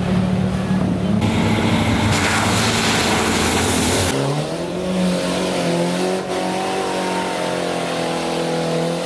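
Off-road 4x4 engine revving hard through deep mud, with a hiss of spraying mud and water for a few seconds. About four seconds in, a different engine note takes over, held at high revs, its pitch creeping up, holding, then easing near the end.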